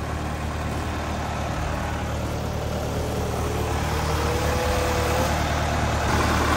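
Engine of a bucket-lift machine (loader) running steadily, growing a little louder toward the end.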